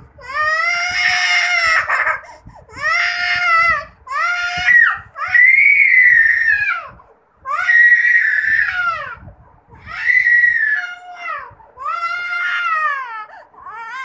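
A toddler crying hard: a string of drawn-out wails, each rising and then falling in pitch, with short catches of breath between them.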